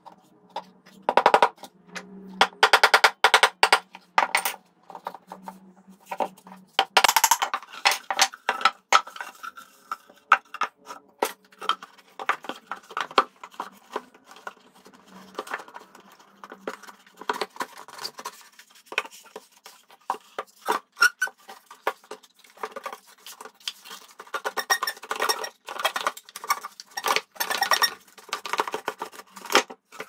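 Bursts of rapid sharp knocks and clicks, the busiest groups about a second in, between two and four seconds, around seven to nine seconds, and again near the end. Under them a faint steady low hum runs until about two-thirds of the way through.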